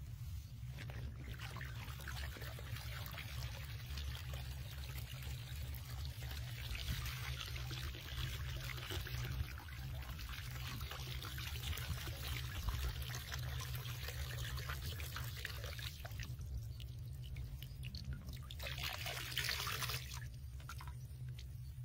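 Water pouring and trickling out of a plastic jar fish trap as it is lifted from a pond, easing off and then running again briefly near the end.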